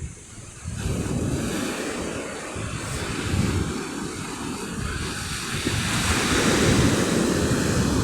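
Sea waves breaking and washing up the beach, swelling louder towards the end, with wind buffeting the microphone in gusty rumbles.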